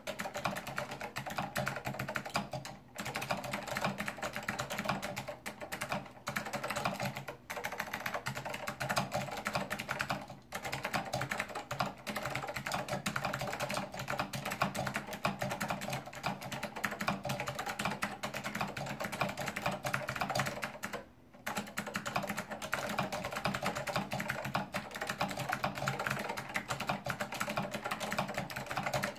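Steady typing on a Monterey K2AX keyboard with clicky SKCM Blue Alps switches, fitted with thick PBT dye-sublimated Apple Extended Keyboard II keycaps, with a few brief pauses.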